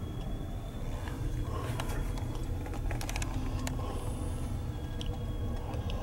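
Passenger train's brakes squealing as it slows to a stop: a thin steady high squeal over a low rumble, with a quick run of sharp clicks and knocks a couple of seconds in.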